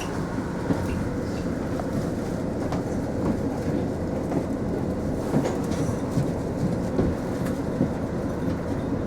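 Cabin noise inside a Mitsubishi Fuso Aerostar city bus: a steady low engine rumble with small rattles and clicks scattered through it.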